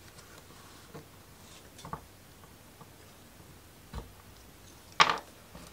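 Small wooden model-kit parts clicking and tapping as they are handled and pressed into place: a few light taps, then a sharper knock about five seconds in.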